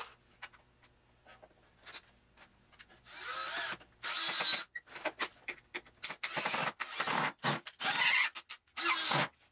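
Cordless drill-driver run in about six short bursts, each about half a second long, after a few faint clicks.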